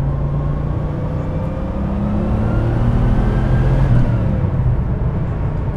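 Porsche 964 Turbo's turbocharged flat-six accelerating, heard from inside the cabin, with the turbo audible over the engine. The pitch climbs for about three seconds and the sound gets louder, then drops just after four seconds in.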